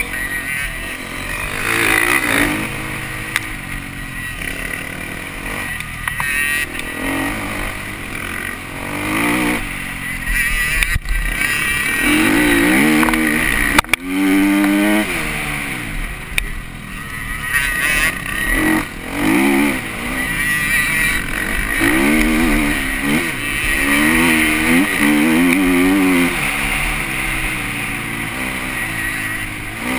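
Husqvarna 250 TC motocross bike's engine revving up and down as it accelerates and shifts around the track, heard from the rider's helmet with wind rush.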